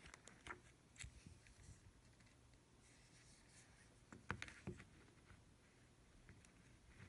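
Faint handling sounds in near silence: scattered light clicks and rubbing, with a louder cluster of clicks about four seconds in.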